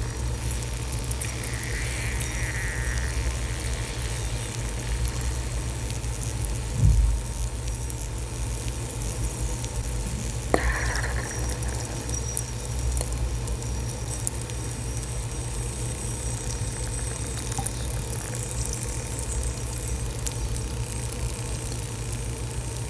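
Lumps of chalky mineral soaking in water, fizzing and crackling faintly as air bubbles escape from the pores, over a steady low hum. There is a dull thump about seven seconds in, and a sharp click a few seconds later.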